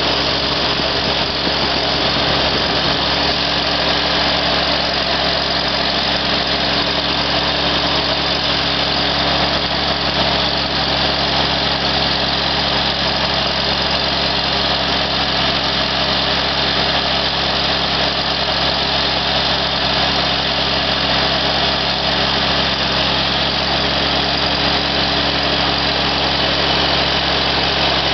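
Iseki SXG19 ride-on mower's diesel engine running steadily, driving the hydraulics that lift and tip the high-tip grass collector.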